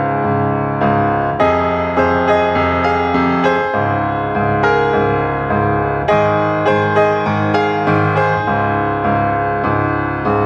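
Background piano music: notes struck at an even pace, each ringing and fading over held chords.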